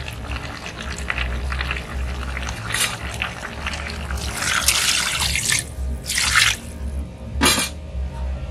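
Water poured from a plastic jug into a metal pot of chicken pieces, splashing in a few bursts over the second half, the longest about halfway through.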